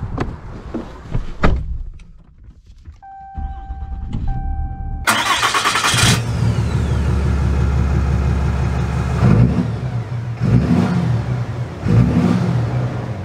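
A few door and cab clicks, then a two-beep dash chime. About five seconds in, a 2022 Ram 3500's 6.7-litre Cummins inline-six turbo-diesel cranks and fires, then settles into a steady idle with a few brief swells.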